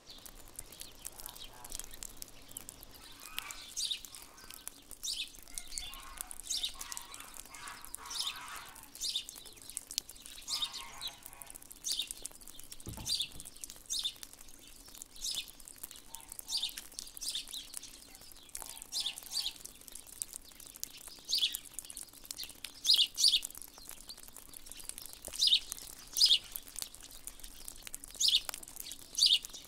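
Small birds calling repeatedly in a thawing winter wood: short, high, falling chirps about once or twice a second, louder in the last third. Softer, lower calls come in during the first third. There is a single low thump about halfway through.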